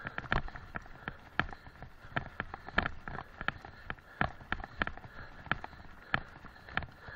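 Rhythmic knocks and rattles, about three a second, from travel over a rough dirt track, picked up by a camera riding along.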